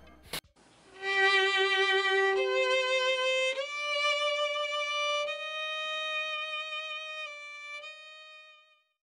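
Violin playing a slow phrase of long held notes with vibrato, each note stepping up in pitch, fading out near the end. A short sharp click sounds just before the violin comes in.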